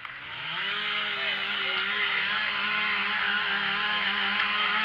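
Chainsaw revved up to full throttle about half a second in, then held at a steady high-pitched run.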